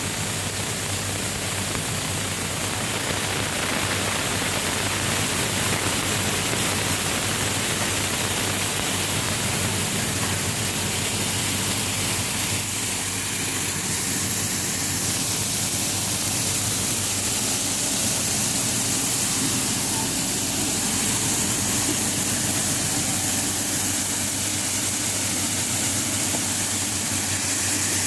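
Electric-motor-driven wheat cleaning machine running steadily: a constant motor hum under an even rushing noise as grain pours through it. The sound gets slightly louder about halfway through.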